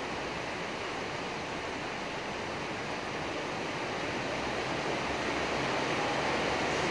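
Steady rain falling, an even hiss that grows a little louder and deeper from about halfway through.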